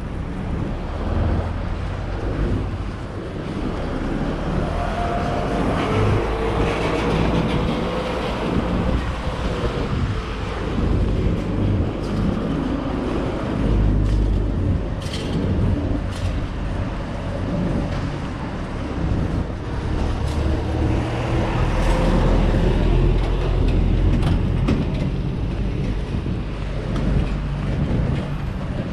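Street traffic: vehicle engines running and passing close by, among them a box truck turning through the intersection.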